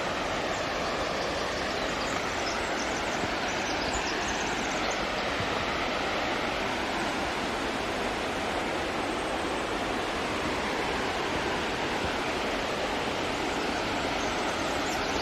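Steady rushing of fast-flowing creek water, an even hiss at a constant level.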